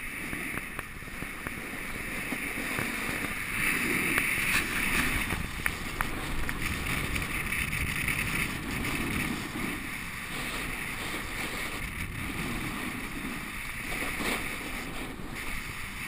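Skis sliding and scraping over chunky, well-ridden snow at speed, with wind rushing over the camera microphone. The scraping is loudest about four seconds in.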